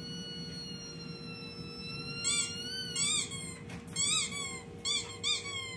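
Small shaggy dog whining: one long, high whine that rises slowly, then a run of five short rising-and-falling whimpers in the second half.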